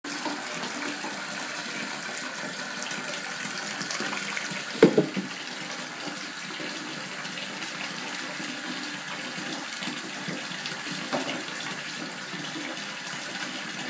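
Water running steadily into a bathtub while a toddler plays in the bath. There is a brief loud thump about five seconds in and a smaller one near the end.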